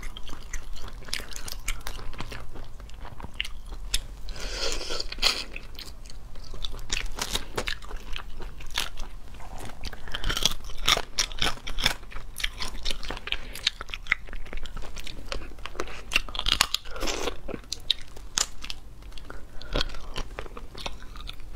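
Crayfish shells cracked and peeled by hand, mixed with crunchy biting and chewing of the crayfish. A steady run of small cracks and clicks, thickening into denser crackling a few times.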